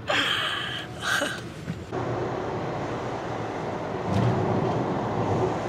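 Steady road and engine noise of a moving car heard from inside the cabin, getting louder about four seconds in. A couple of short noisy sounds lie over it in the first two seconds.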